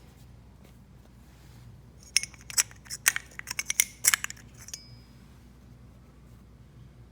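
A quick run of light clinks and taps, like small hard objects knocking together, starting about two seconds in and lasting about three seconds; the last one leaves a short ring.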